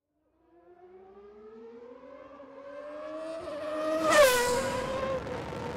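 A white BMW X5 SUV's engine grows louder and rises slowly in pitch as it speeds toward the camera on a dirt road. It passes close about four seconds in with a brief rush, and the pitch drops as it goes by.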